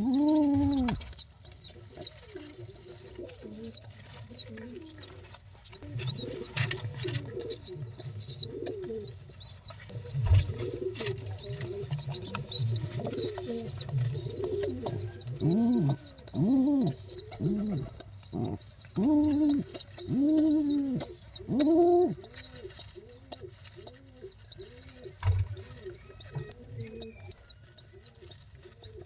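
Pigeon squabs peeping to beg for food, a rapid, high-pitched series of about three or four peeps a second that keeps going, with lower cooing calls coming and going underneath.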